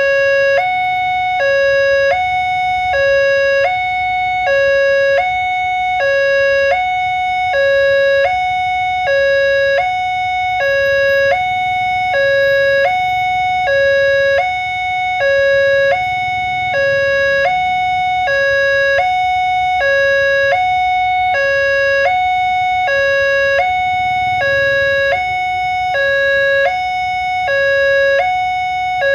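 Railway level-crossing warning siren sounding a steady two-tone alternation, switching between a low tone and a slightly higher one about every two-thirds of a second, over a low rumble.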